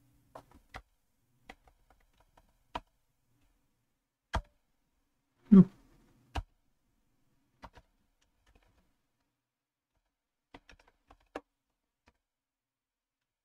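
Scattered keystrokes on a computer keyboard: single clicks and short runs of taps at irregular gaps, as code is typed and edited. One louder, deeper knock comes about five and a half seconds in.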